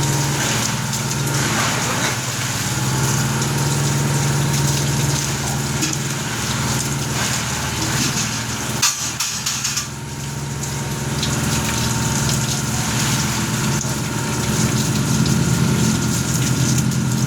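A machine running steadily with a constant low hum and a hiss, with a brief unsteady dip about nine seconds in.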